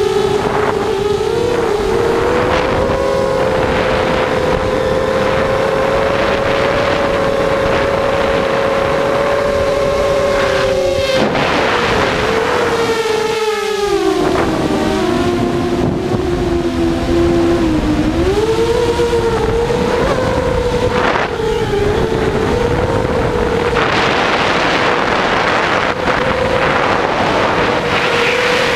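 Quadcopter's electric motors and propellers whining, heard from a camera on the aircraft itself, the pitch sagging for a few seconds around the middle and climbing back as the throttle changes, with wind rushing over the microphone.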